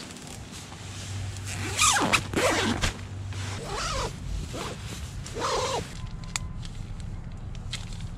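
A zipper being pulled in about four short strokes, each a rasp that sweeps up and down in pitch.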